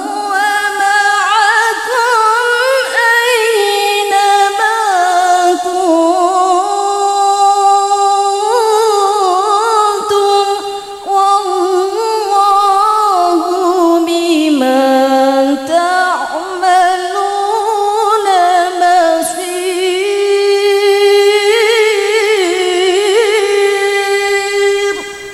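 A woman's solo voice chanting a melodic Quran recitation (tilawah) into a microphone. It moves in long, ornamented held notes, with short pauses for breath between phrases.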